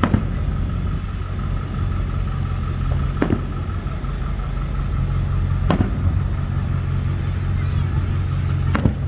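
Distant aerial fireworks shells bursting: four sharp bangs, each about two and a half to three seconds after the last, over a steady low engine hum.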